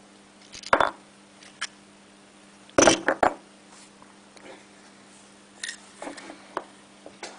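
Hard plastic retail security tag and its metal pin clicking and knocking on a tabletop as they are handled and the tag is taken apart, in a few separate clicks with the loudest cluster about three seconds in.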